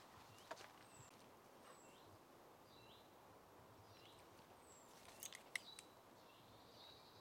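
Near silence with faint bird chirps: short high calls, some falling, and one held note near the end. A few sharp clicks come a little past halfway.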